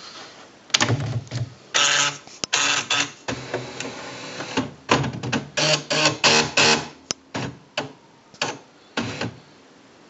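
Silver Reed EX133MD electronic typewriter powering up: a string of whirring and clicking bursts from its print mechanism, starting about a second in and stopping about nine seconds in.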